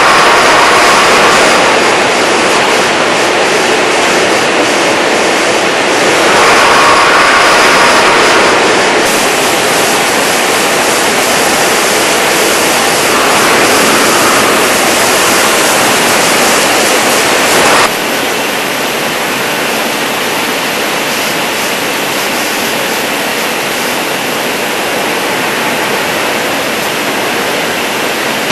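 Loud, steady rushing hum of a cathode-ray-tube factory hall, from air handling and running production machinery. About two-thirds of the way through it drops suddenly to a somewhat lower, duller level.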